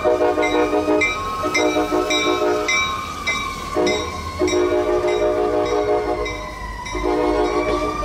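Locomotive five-chime air horn (Nathan K5LA) sounding a series of long and short blasts, over a siren wailing slowly up and down and a bell clanging about twice a second.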